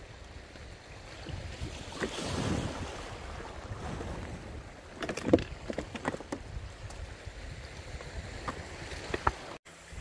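Wind buffeting the microphone over the wash of waves on a stony sea shore, with a surge of surf a couple of seconds in. From about halfway through come irregular crunches and clicks of footsteps on beach stones.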